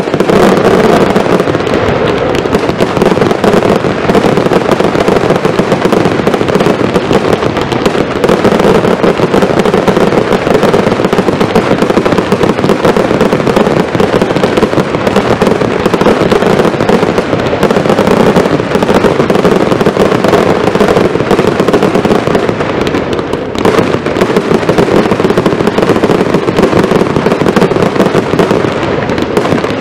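Fireworks fired in a dense barrage: a loud, continuous rattle of overlapping bangs and crackles with no break between shots.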